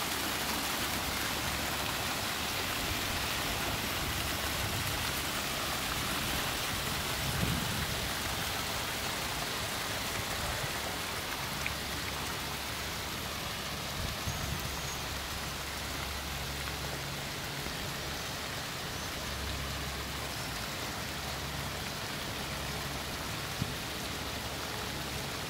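Water from an ornate stone fountain's jets splashing steadily into its basin.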